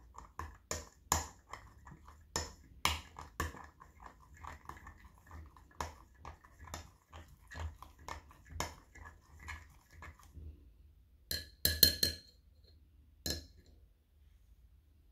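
Long metal bar spoon stirring mango chunks and pulp in a glass goblet, clinking against the glass irregularly several times a second. About eleven seconds in comes a quick run of louder clinks, then one more, before the spoon comes out.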